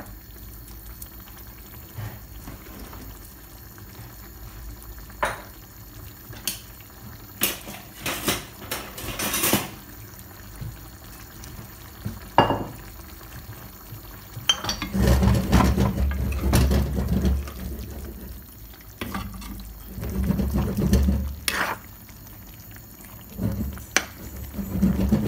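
Metal spoon stirring a simmering fish and vegetable stew in a pan, with scattered clinks and scrapes against the pan. The stirring grows louder and busier in the second half.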